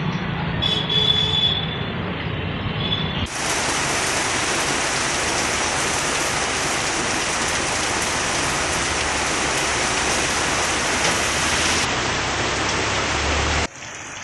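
Heavy rain pouring onto a flooded street, a dense steady hiss that starts abruptly about three seconds in and runs until it cuts off sharply just before the end. Before it comes a quieter stretch of water and street noise with a faint high tone.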